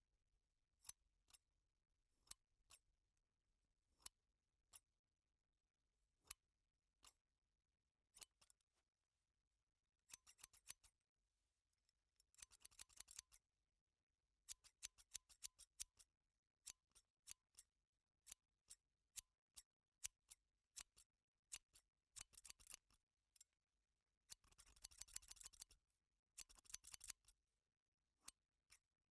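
Scissors cutting: single sharp snips a second or two apart at first, then quicker runs of rapid snips close together, the densest near the end.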